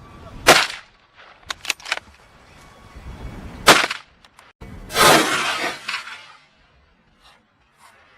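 Gunshots: two sharp shots about three seconds apart, then a longer loud noisy blast about five seconds in that fades over a second or so.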